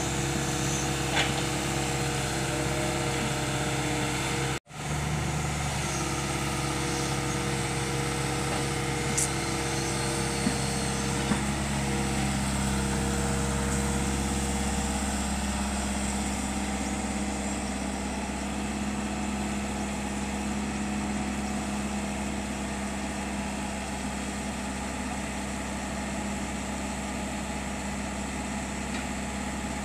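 Heavy-equipment diesel engine running steadily, as an excavator works loading soil onto a truck. The sound drops out briefly about four and a half seconds in, and about halfway through the engine's note changes. A few faint clicks are scattered through it.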